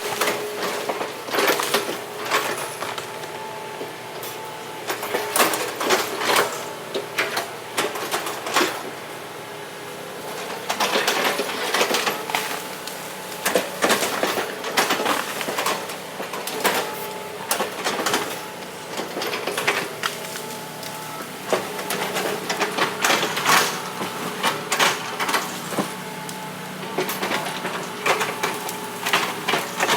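Heavy machinery, likely the excavator, running with a steady hum under frequent irregular metallic knocks and clanks.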